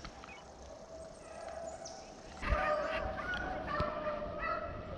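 Pack of rabbit-hunting dogs baying in the distance as they run a rabbit's trail. The baying comes in about two and a half seconds in, as repeated overlapping calls.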